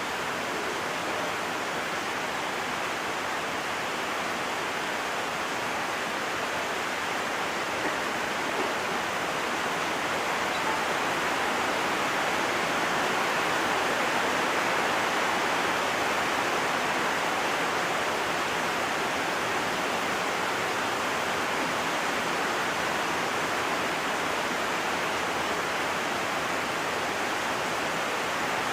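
Heavy rain pouring steadily, a dense, even rush of noise that grows slightly louder about ten seconds in.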